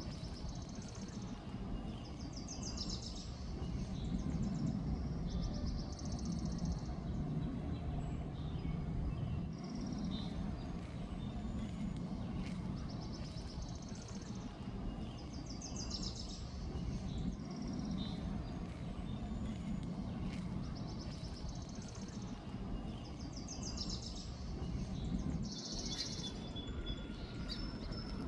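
A songbird singing a short, rapid trilled phrase again and again, every two or three seconds, over a steady low rumble of background noise.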